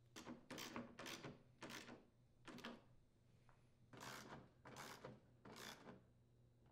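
Hand ratchet with a 3/8-inch socket driving screws home: short, faint ratcheting strokes, about eight in all, in two runs with a pause of a second or so between them.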